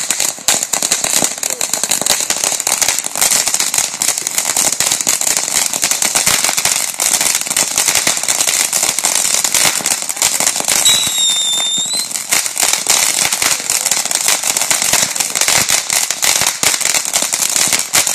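Ground firework fountains spraying sparks with a dense, continuous crackle over a high hiss. A short, high whistle sounds about eleven seconds in.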